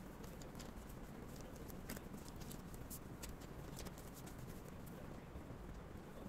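Faint, scattered light clicks and ticks of pens and small drawing tools being handled in a plastic tray on a desk, over a low steady room hum.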